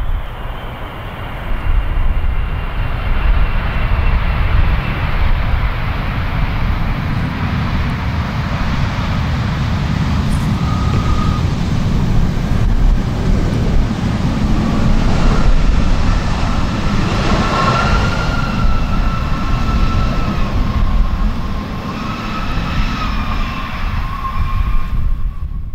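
Jet engines of a Boeing 777 freighter landing and rolling out on the runway: a steady low rumble with thin whining tones that slide in pitch as the aircraft passes, swelling for a few seconds midway.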